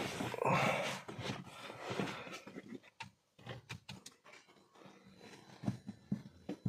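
Rustling in a car cabin, then a few light sharp clicks as the start button is pressed on a 2014 Mini Cooper F56, with no engine cranking: only a 'tek', the sign of its starter/ignition fault.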